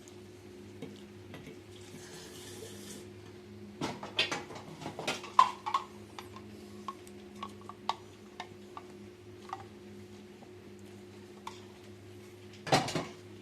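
Clicks and clinks of small hard objects being handled, in a cluster about four to six seconds in, then scattered single ticks and one louder clatter near the end, over a steady low electrical hum.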